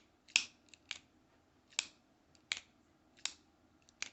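Benchmade Griptilian 551 folding knife being flicked open and shut, its spring-loaded AXIS lock snapping: about seven sharp clicks, roughly one every half second to second.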